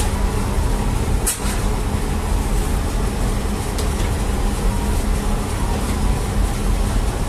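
Steady low drone of bread-bakery machinery around a large flatbread oven, with a brief click about a second in.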